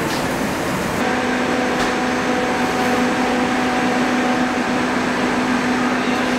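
Steady rushing noise of commercial kitchen ventilation from the exhaust hoods over the cooking line. A steady low hum joins about a second in.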